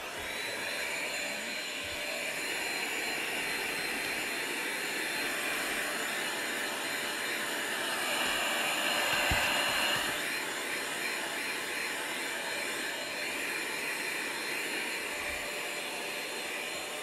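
Corded handheld vacuum cleaner with a long crevice nozzle, starting up at the very beginning and then running steadily. It grows a little louder for a couple of seconds about halfway through.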